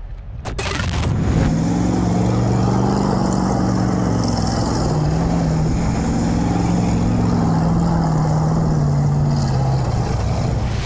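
Ford 460 big-block V8 in a 1979 F-150 pickup revving up and held at high revs under load as the truck spins circles on dirt, easing off and dropping in pitch near the end.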